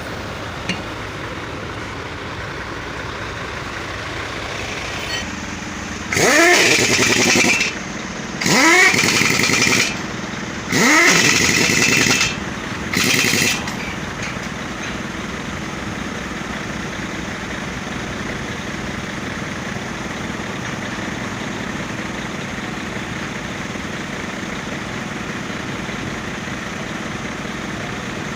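A motor revving up in four short bursts, each rising sharply in pitch, over a steady running engine.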